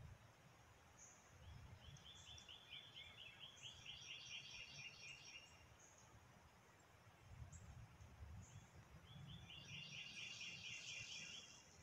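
Faint birdsong: a bird sings a rapid trill of repeated notes, once about two seconds in and again near the end, with scattered short high chirps in between. Under it runs a low, uneven rumble.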